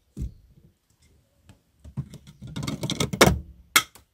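A thump, then a quick run of hard plastic clicks and rattles from the Citroën C15's dashboard under a hand, loudest about three seconds in, followed by two single clicks.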